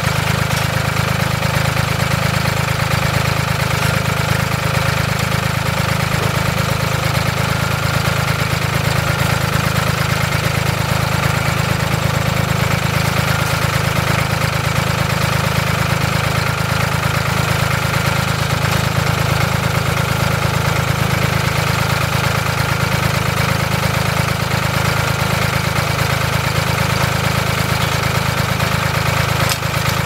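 Farm tractor engine idling steadily, a low even drone.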